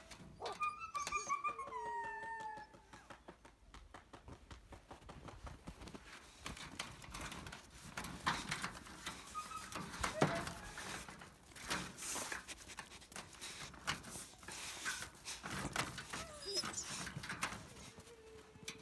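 Dogs at a wire-mesh fence: a whine that falls in pitch about a second in, then paws scratching and knocking against the wire in a long string of clicks, with a few short whines again near the end.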